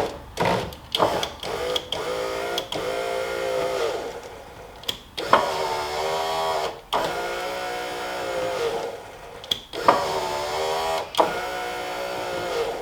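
Porsche 944 electric window motor driving the glass in several short runs, a whine whose pitch wavers as it works, with clicks and knocks between runs. The freshly reassembled window regulator is being tested.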